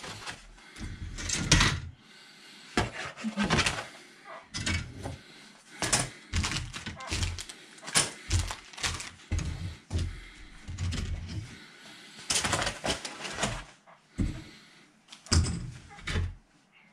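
Plastic model-kit sprues being handled and set down on a cutting mat: irregular light clicks and clatters of hard plastic, mixed with the crinkling of a clear plastic parts bag.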